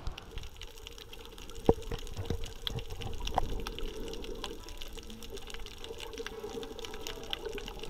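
Underwater sound from a camera below the surface: a muffled wash of water with a steady crackle of small clicks, and one sharper knock about two seconds in.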